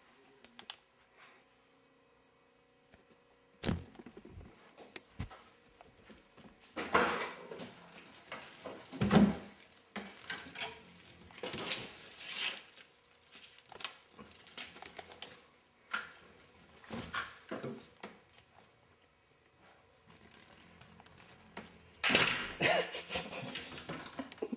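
A cat leaping and scrambling after a moth: a sharp knock, then irregular thumps, scuffles and light clatter, with a louder flurry near the end.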